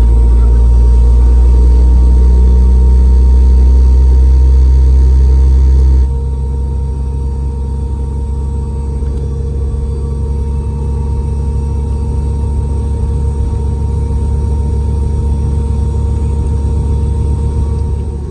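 Rolls-Royce BR715 turbofan engines of a Boeing 717 heard from inside the rear cabin: a loud, steady low rumble with a steady hum running through it. About six seconds in, the sound drops abruptly to a lower, rougher rumble.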